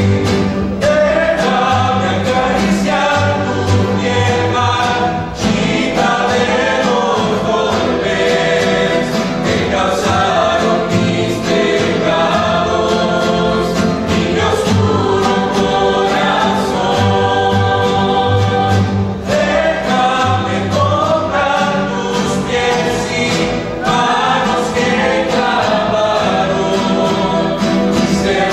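A rondalla performing a Spanish-language hymn: a mixed choir singing together over strummed acoustic guitars and a plucked upright bass (tololoche).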